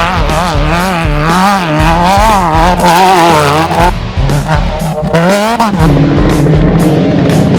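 Off-road race vehicle's engine at high revs, its pitch swinging rapidly up and down again and again; about six seconds in the pitch steadies into a slower rise and fall.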